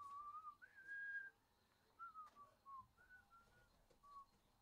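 Faint whistling of a tune, a string of clear single notes that slide up and down in short phrases.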